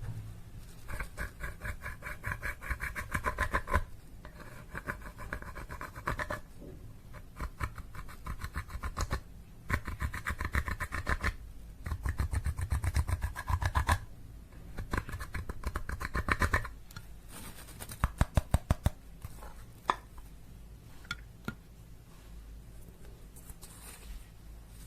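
Slime being squeezed and kneaded by hand, giving bursts of rapid crackling clicks a second or two long. After about two-thirds of the way through, the clicks turn into sparser single pops.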